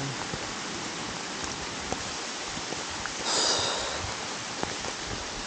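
Steady hiss of rain falling on dense forest foliage, with a brief louder rush about three seconds in.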